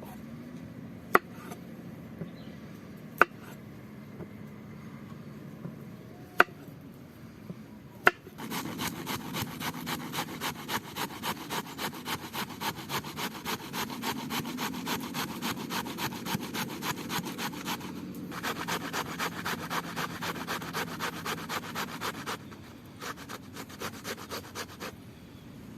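Knife chopping fresh herbs on a wooden cutting board in quick regular strokes, about three a second, after a few separate sharp knocks in the first eight seconds; the chopping breaks off briefly near the end, then resumes.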